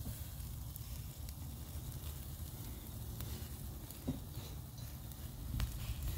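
Hamburger patties sizzling on a small round grill, with a few faint crackles, over a low rumble of wind on the microphone.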